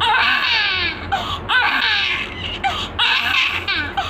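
Newborn baby crying: a long wail that falls in pitch at the start, a few short cries, then another long wail about three seconds in.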